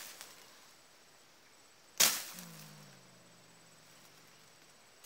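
A single machete slash through fern undergrowth about two seconds in: a sharp swish and chop that dies away quickly, followed briefly by a faint low, slightly falling tone.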